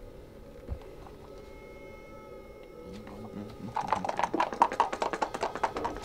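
A fast rattling clatter of about ten clicks a second starts a little over halfway through and grows loud, over a steady high drone of held tones. A soft low thump comes near the start.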